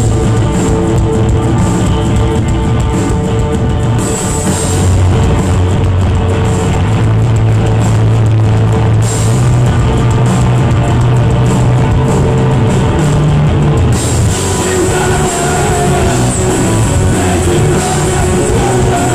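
Rock band playing live at full volume: distorted electric guitars, bass and a drum kit.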